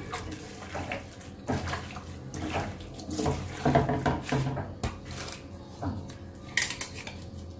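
Raw beef chunks being mixed by hand with salt and spice paste in a steel pot: irregular wet squelching and rubbing with light knocks against the pot, and a sharper clatter near the end.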